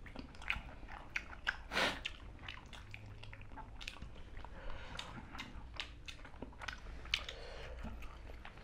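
People chewing and biting into chicken drumsticks and rice eaten by hand, quiet with many small wet clicks of the mouth and food.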